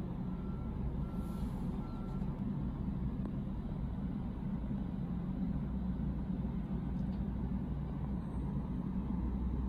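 Steady low rumble of background noise, with two faint short beeps about one and two seconds in.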